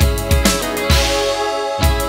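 Instrumental intro of a Bengali song played by a band: a steady drum beat under held chords. The low beats drop out for a moment past the middle and come back just before the end.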